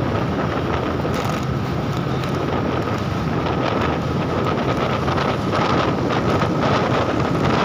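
Steady wind rushing over the microphone of a camera on a moving motorcycle in traffic, with a faint steady whine underneath.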